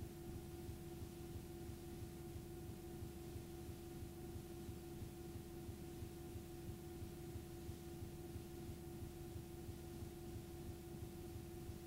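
Blank videotape playing back: a faint, steady hum tone over even hiss, unchanging throughout.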